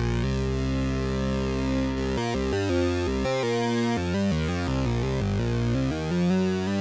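Behringer Poly D analog polyphonic synthesizer played dry, without effects. It holds a sustained chord for about two seconds, then moves into a quick run of changing notes and chords over a low bass line.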